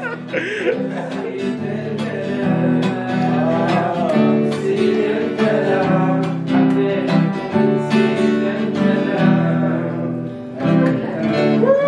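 Acoustic guitar strummed in steady chords, with voices singing along.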